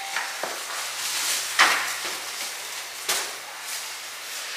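A few sharp knocks or thumps, about one every second and a half, over a faint steady hum.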